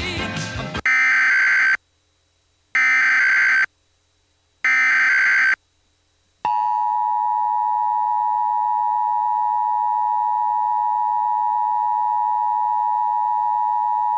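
Emergency Alert System SAME header: three one-second bursts of buzzy digital data, a second apart. About six seconds in, the steady EAS two-tone attention signal (853 and 960 Hz) begins.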